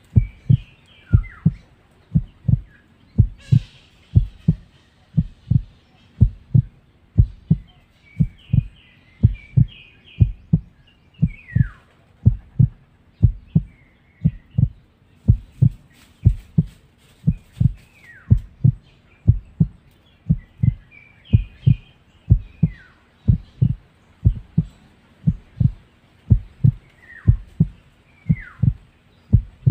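Heartbeat sound effect: an evenly repeating low double thump. Above it, forest birds chirp and give short descending whistles.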